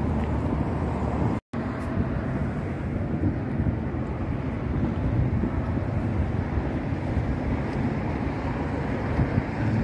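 Wind blowing across the microphone: a steady low rumbling noise. It cuts out to silence for a moment about a second and a half in.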